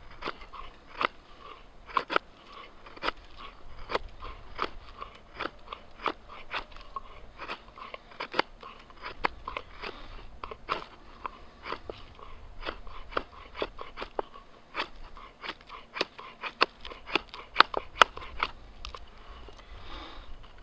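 Fixed-blade knife slicing shavings off a wooden billet, reducing the wood down to a stop cut: a quick, irregular series of sharp cuts, about two a second.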